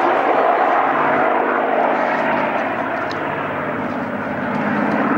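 Four piston-engined warbird fighters flying in formation, their propeller engines running together in a steady drone, with a deeper engine note building near the end.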